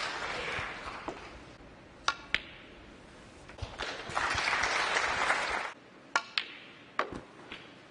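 Sharp clicks of snooker balls: the cue striking the cue ball and balls knocking together, in pairs about two seconds in and again several times near the end. Audience applause fades at the start, and a second burst of applause about four seconds in stops abruptly.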